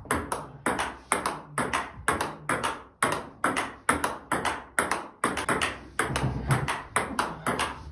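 Table tennis ball struck by a rubber-covered paddle and bouncing on the table in a steady rally, a sharp click about two to three times a second.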